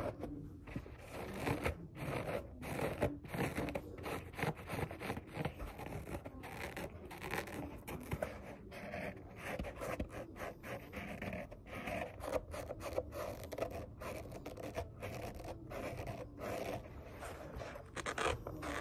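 Hands rubbing and moving right up against the microphone: dry skin-on-skin rubbing and scratchy swishes in quick, irregular strokes, the crisp hand sounds of ASMR.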